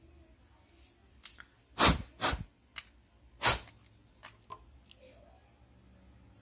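Sharp clicks and taps from a smartphone and its small parts being handled on a repair bench. There are a few scattered light ticks and three louder knocks, about two seconds and three and a half seconds in.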